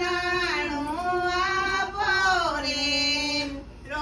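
A woman singing a Gujarati haldi (pithi) wedding song in long, held notes that glide from pitch to pitch.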